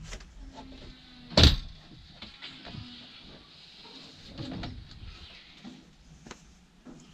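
A built-in oven being handled in its galley housing: one loud bump about a second and a half in, then lighter knocks and scrapes.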